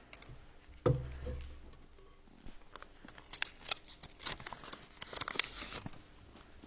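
A thump about a second in, then a run of small clicks and crackles as a folded paper slip is handled and unfolded close to a desk microphone.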